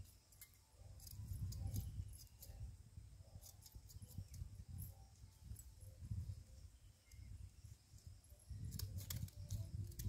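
Faint outdoor background: a low, fluctuating rumble on the microphone with scattered faint high clicks and chirps, and a denser cluster of clicks near the end.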